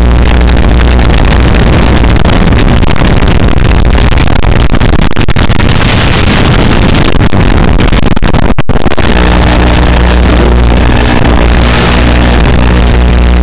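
Electronic dance music with a heavy bass beat. In the middle the beat gives way to a building wash of noise, which breaks off for a split second before the bass beat comes back.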